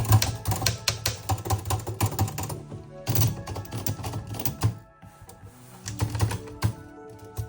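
Olivetti Studio manual typewriter being typed on: quick runs of key strikes that pause briefly about two and a half seconds in, then go on more sparsely, with background music playing.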